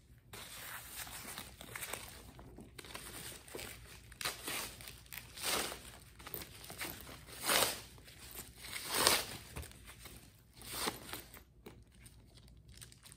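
Crinkling and rustling of protective wrapping as it is handled and pulled off a handbag's shoulder strap: uneven rustles with a few louder crackles, the loudest about two-thirds of the way through.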